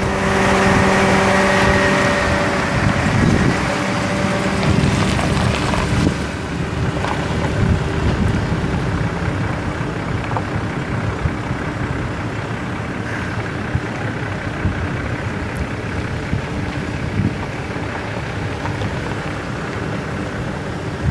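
5.7 L V8 gas engine of a Dodge Ram 2500HD pickup running steadily, with a steady whine over the first few seconds that fades out about four seconds in.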